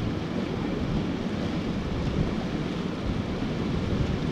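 Steady rushing of river water around a raft, with wind buffeting the microphone.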